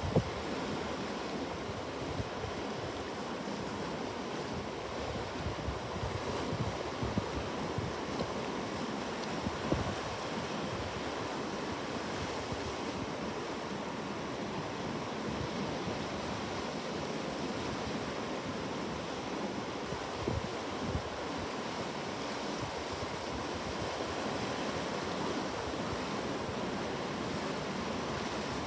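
Ocean surf: waves washing onto a shore in a steady rush, with a few brief low bumps of wind on the microphone.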